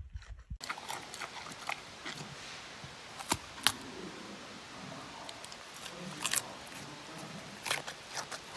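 Giant panda biting and chewing a chunk of pumpkin: soft wet chewing with a few sharp crunches, over a steady hiss.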